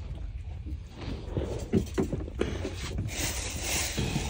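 Boat at sea: a steady low rumble with irregular knocks of water slapping against the hull, and a rushing hiss of water or wind that swells about three seconds in.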